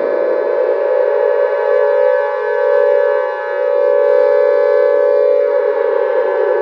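Great Mother Megaphone monster sound effect: a loud, steady civil-defence-siren-like drone with many overtones, its lower edge sagging slightly in pitch near the end.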